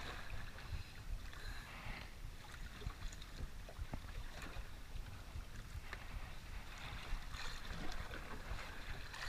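Wind and sea water around a small outrigger boat at sea: a steady rushing noise with a low rumble, and a few faint clicks.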